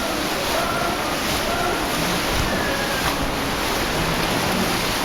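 Cave stream in near-flood spate, rushing water making a steady loud roar.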